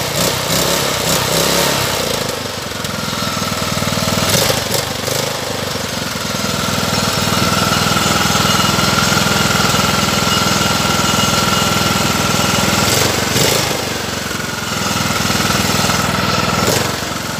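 Husqvarna mower's engine running at a steady speed, with a steady high whine over it and a few brief dips in loudness.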